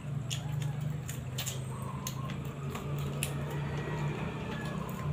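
A person gnawing and sucking on a boiled chicken foot, with wet mouth clicks and smacks scattered through, over a steady low hum.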